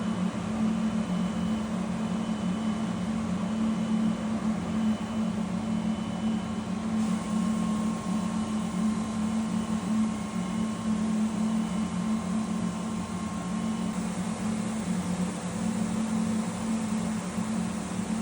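Laguna 37-inch single-phase 10 hp wide belt sander running together with the shop's dust collection system: a steady machine hum with a low drone and a few thin steady whines above it. About seven seconds in, a high hiss grows louder.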